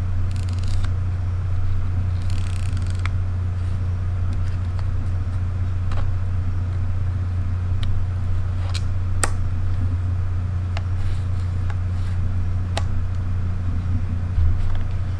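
A steady low hum throughout, with hands handling a Fujifilm XF 23mm f/1.4 lens: two brief rustles near the start, then a string of single sharp clicks as its aperture ring is turned through its click stops.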